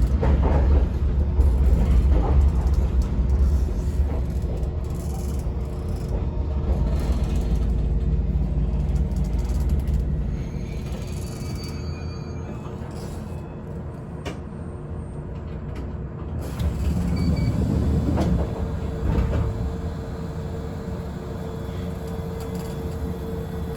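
Yoro Railway local electric train running on the line, heard from inside the car: a steady low rumble that eases off about ten seconds in, with a steady hum underneath.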